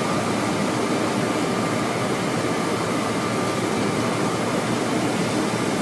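Steady cockpit noise of a Boeing 727-200 on final approach: rushing airflow and the hum of its JT8D turbofans, with a faint steady high tone that fades about halfway through.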